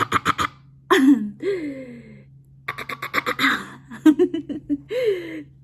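A woman making silly vocal noises: rapid stuttering bursts of about eleven pulses a second, broken by short voiced glides that drop in pitch.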